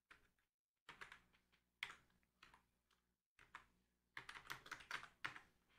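Faint computer keyboard keystrokes: a few scattered key presses, then a quick run of typing about four seconds in.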